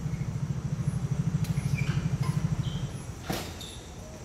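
A motor vehicle's engine running with a fast, even throb, fading out about three seconds in. Then comes a single sharp smack of a badminton racket hitting the shuttlecock.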